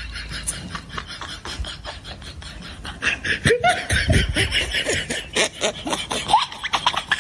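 Laughter, a quick run of laughing that gets much louder about three seconds in.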